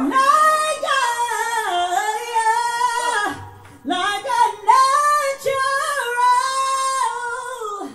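A woman singing into a microphone, holding long notes and sliding between pitches in two phrases, with a short break a little after three seconds in.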